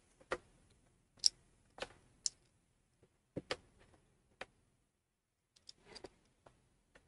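Light, irregular clicks and clacks, about ten over several seconds, from the tester's Kelvin clips being handled and clipped onto the leads of a power resistor.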